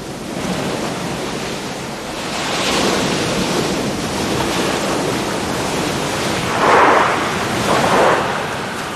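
Sea waves washing onto a sandy beach, a steady surf noise with two louder breaks near the end.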